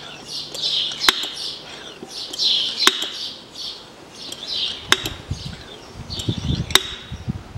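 Hand oil pump being worked to push gear oil through a hose into a manual gearbox: repeated hissing strokes about once a second, with a sharp click about every two seconds and a few dull knocks near the end.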